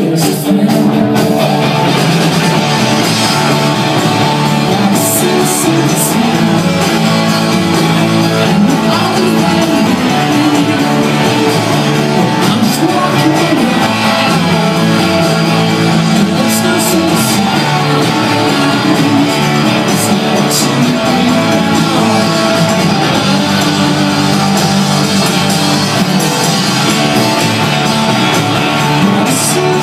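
Rock band playing live with electric guitars and drums, loud and continuous.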